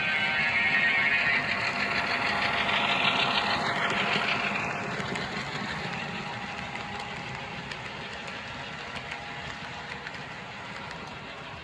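Model diesel locomotives running on a layout loop: a small electric motor's whine and wheels on the track. It is loudest for the first four seconds as a train passes close, then settles into a quieter steady run.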